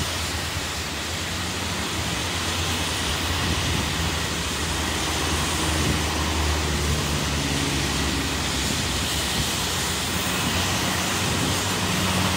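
Steady rumble and hiss of passing road traffic, with a heavier engine hum swelling about five to eight seconds in.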